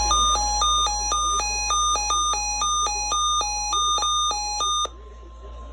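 Emergency alert tones on a weather radio broadcast: a steady tone near 1 kHz, typical of the NOAA Weather Radio 1050 Hz warning alarm, under electronic beeps that alternate between two pitches about four times a second. The beeping cuts off about five seconds in, leaving the steady tone faint.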